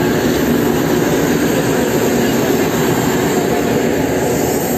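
A stationary diesel passenger train's engine running with a steady, loud rumbling drone.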